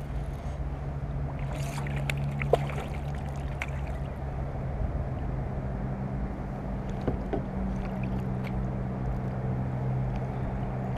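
A steady low hum and rumble, with a few sharp knocks and clicks from rod, reel and kayak handling while a small bass is reeled in to the kayak. The loudest knock comes about two and a half seconds in.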